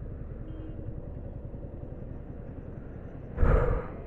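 Yamaha R15 V4's 155cc single-cylinder engine idling at a standstill in traffic, a steady low rumble. About three and a half seconds in there is one brief, loud burst of noise lasting about half a second.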